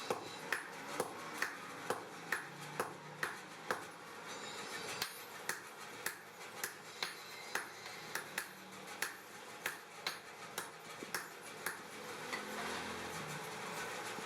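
Hand hammer striking steel on an anvil in a steady rhythm of about two ringing blows a second, with a short break about four seconds in. The blows stop near the end and a steady rushing noise takes over.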